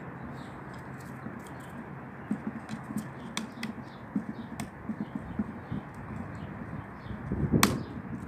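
A dog gnawing and biting at a large chunk of old wood: scattered small irregular crunches and knocks, then one sharper, louder knock near the end.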